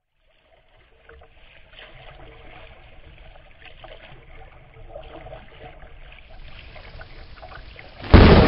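Faint water lapping and splashing against a kayak. About eight seconds in, a sudden loud rumble of thunder and rain cuts in.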